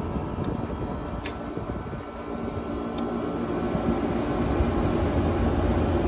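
A 2006 GE 6000 BTU window air conditioner, built by LG, running with a steady rush of air from its blower fan that grows louder from about two seconds in as the fan is turned up toward high speed. Two short clicks are heard near the start. The owner suspects that the fan runs too slow on its lower speeds and that the evaporator coil has iced up.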